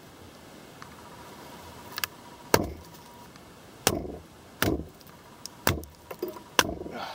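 A wooden baton strikes the spine of a Condor Pack Golok machete about seven times, in sharp, unevenly spaced knocks. The blows drive the blade down through a resinous pine log to split it.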